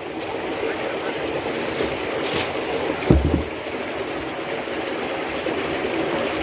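Steady rushing of flowing water, with a brief knock about three seconds in.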